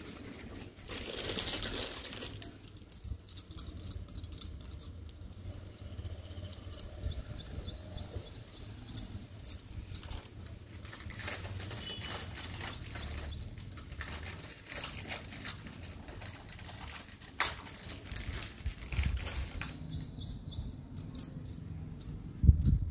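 Glass bangles clinking and jingling against one another as a stack is handled, in scattered light clicks over a low rumble of handling noise. A louder thump comes near the end.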